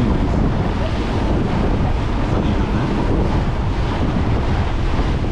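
Steady wind buffeting the microphone aboard a moving tour boat, with the boat's rumble and choppy water rushing past underneath.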